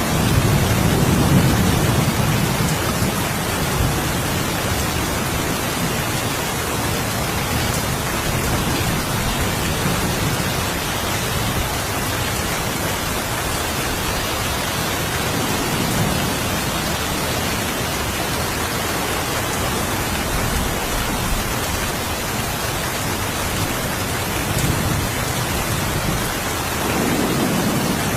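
Steady rain falling, with low rolls of thunder rumbling in the first couple of seconds and again briefly near the end.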